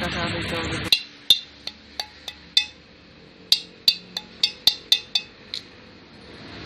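Metal parts clinking sharply against the aluminium clutch cover and crankcase of a Yamaha Gladiator engine during reassembly: about fourteen quick, ringing clinks, a couple a second with a short pause midway. A steady hiss cuts off abruptly about a second in, before the clinks start.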